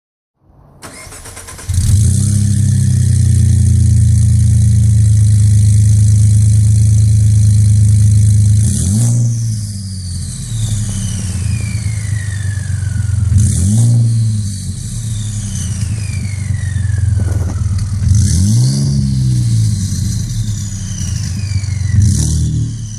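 Ford F-150's 3.5 L twin-turbo EcoBoost V6, with straight-through downpipes and a 4-inch exhaust, starts about a second in and runs steadily for several seconds. It is then blipped four times, and after each rev a high turbo whistle falls in pitch as the turbos spool down.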